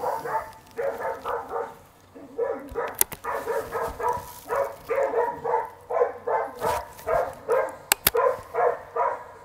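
Hunting dog bay-barking at a wild boar it is holding: rapid, repeated barks, about three a second, played through the shooting simulator's speakers with thin bass. A few sharp clicks break in, the loudest near the end.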